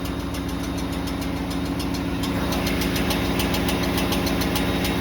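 Ford F-150's Coyote 5.0 V8 idling with a fast, even metallic ticking on top: the torque converter bolts slapping the bellhousing divider plate, as the owner describes it.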